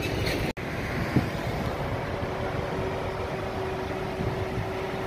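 Outdoor background of wind on the microphone and a low rumble of vehicles, with a faint steady hum from about two seconds in.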